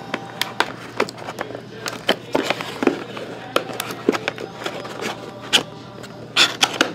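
Hands handling a cardboard hockey-card hobby box on a table: scattered taps, knocks and scrapes of cardboard as it is turned over and gripped, busier near the end.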